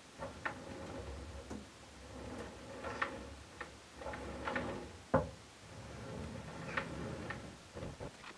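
Light clicks and knocks of small metal parts being handled and fitted: a follower shaft going into the head of a DIY turntable camera gimbal. The sharpest click comes about five seconds in, over a faint steady hum.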